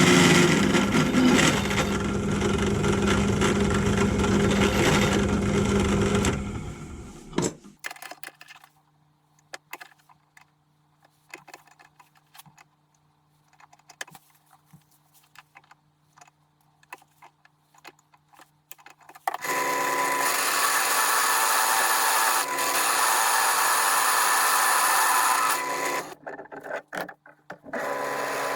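Pillar drill running at about 1320 RPM and cutting into a metal sprocket blank. The cutting stops after about six seconds, leaving a faint hum and small clicks for a while, then starts again loudly with a brief drop near the end.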